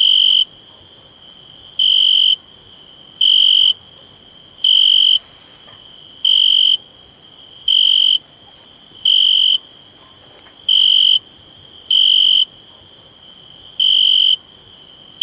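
A cricket chirping: short high-pitched chirps of about half a second each, repeating roughly every one and a half seconds, over a faint steady high hiss.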